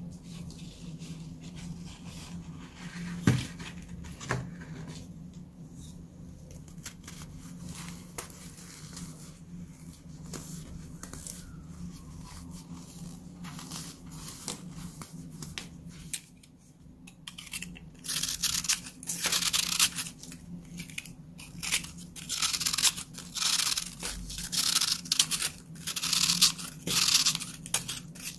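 Dry compressed baking soda crunching and crumbling in the hands: soft scattered crumbling with a sharp crack about 3 seconds in, then, from about two-thirds of the way through, dense loud crunching as chunks are squeezed and broken apart.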